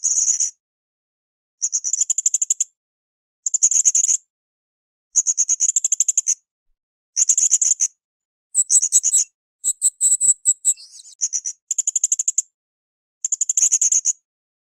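Blue-crowned hanging parrot (srindit) calling: repeated high-pitched, rapid chattering trills, each under a second long and coming every second or two, with a more varied, warbled phrase around the middle.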